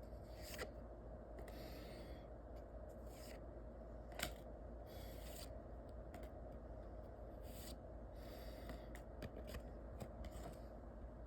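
Trading cards handled and slid one over another: a soft swish every second or so, with a few sharp clicks, the loudest a little past four seconds in, over a faint steady hum.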